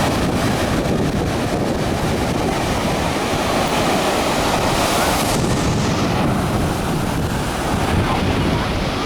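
Surf and open-water noise, heavy with wind buffeting the microphone. A higher hiss drops away about halfway through.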